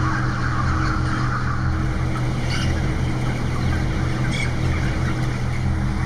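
Steady low hum of a broiler shed's ventilation fans, with the murmur of a crowded flock of chickens and a couple of brief chicken calls about midway.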